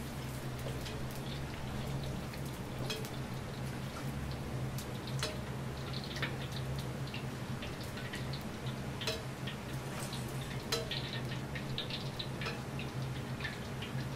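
Gas wok burners on a restaurant range running with a steady low roar, with scattered light crackles and ticks from the hot woks.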